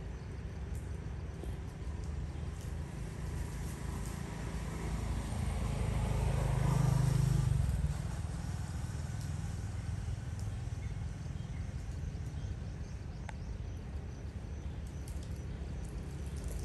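Steady low rumble, with a vehicle passing that swells from about five seconds in and drops away sharply near eight seconds.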